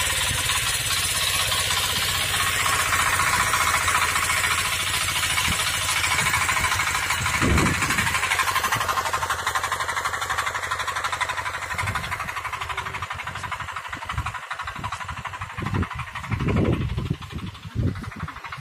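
Power tiller's 9 HP diesel engine running steadily under load as it pulls a blade harrow through the soil, with a fast, even chugging beat. The engine grows fainter in the second half, with a few irregular low thumps near the end.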